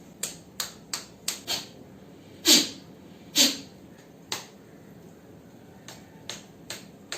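A series of short, sharp clicks or snaps. Five come in quick succession at the start, two louder and fuller ones follow near the middle, and a few more are scattered toward the end.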